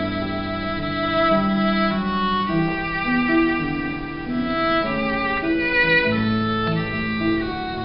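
Violin playing a hymn tune over keyboard accompaniment, with held low bass notes and chords beneath the bowed melody line.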